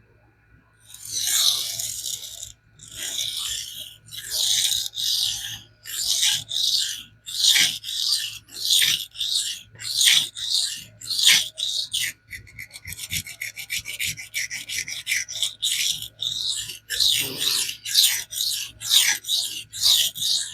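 A steel knife blade being stroked freehand across coarse 100-micron aluminum oxide abrasive film, a gritty scrape with each pass, reprofiling the edge. The strokes start about a second in, come about once a second at first, then quicken to near two a second, with a run of faster, lighter strokes midway.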